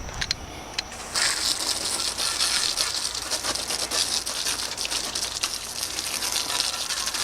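Water spraying onto a car wheel to rinse off the sanding residue, a steady hiss that starts about a second in.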